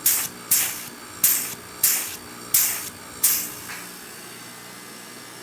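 Half-horsepower air-conditioner compressor running, just started through a time-delay relay. There is a faint steady hum under sharp hissing spurts that come about every 0.6 to 0.7 s and stop about three and a half seconds in.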